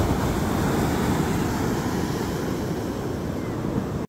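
Wind buffeting the microphone over the steady rush of ocean surf breaking on a sandy beach.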